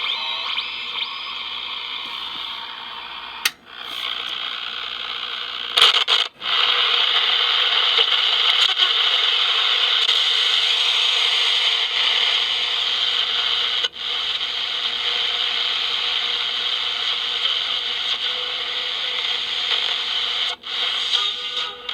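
Hallicrafters SX-24 shortwave receiver putting out steady hiss and static from its speaker, tuned off a station. A few sharp clicks and brief dropouts break it, at about three and a half seconds, six seconds, fourteen seconds and near the end.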